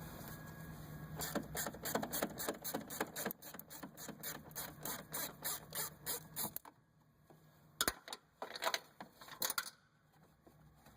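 Quarter-inch ratchet with a Torx bit clicking in quick runs of pawl clicks as a screw is backed out; the clicking stops partway through, and a few more clicks come near the end.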